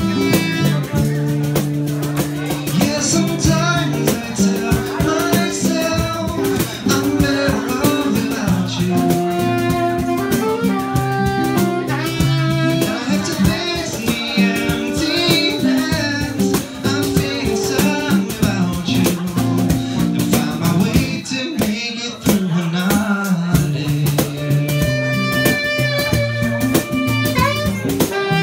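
Live acoustic guitar strummed while a saxophone plays a melody over it, an instrumental break with no words sung.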